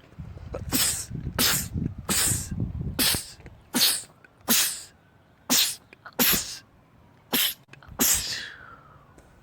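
A man sneezing about ten times in quick succession, roughly one sneeze a second, the last one trailing off with a falling voice.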